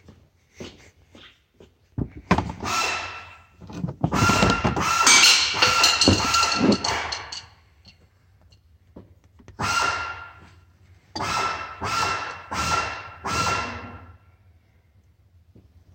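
A thump, then a power tool with a whining motor running in bursts: one long run of a few seconds, then four short pulls of the trigger.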